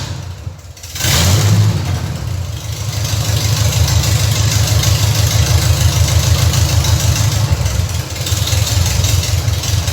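Chevrolet Opala four-cylinder engine running loud through a newly fitted 4-into-2 exhaust header, a deep, fast-pulsing exhaust note. It is quieter for about the first second, then steady and loud.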